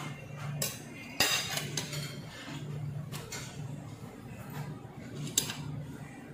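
Metal cutlery clinking and scraping against ceramic plates and a bowl during a meal: a few sharp clinks, the loudest about a second in and another near the end.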